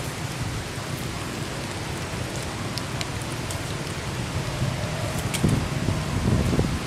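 Steady rain hiss with scattered sharp drop ticks. A few low thuds come in near the end.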